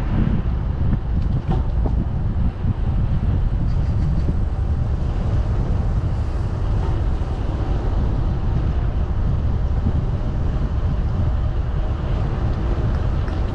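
Wind buffeting the microphone of a camera riding on a moving bicycle: a steady, loud low rumble.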